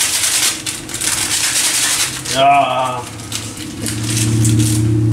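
Noodles, sausage and bell pepper crackling and sizzling in an oiled frying pan. About two and a half seconds in there is a brief voice sound, and near the end a low steady hum starts.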